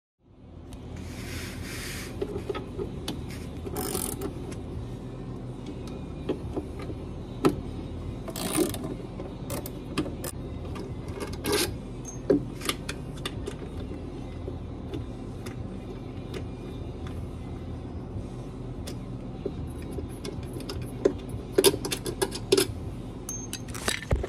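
Scattered metallic clicks and clinks of a hand tool and loose parts as the stator of a top-load washer's direct-drive motor is unbolted, over a steady low mechanical hum. The clicks come in clusters, several in the middle and a quick run near the end.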